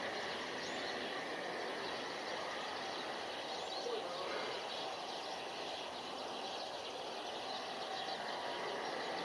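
Steady outdoor background noise over a city, with a few faint short bird chirps.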